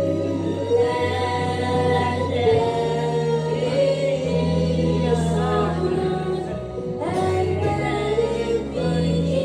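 Music with singing: voices hold long notes over low sustained accompaniment notes that change every second or two.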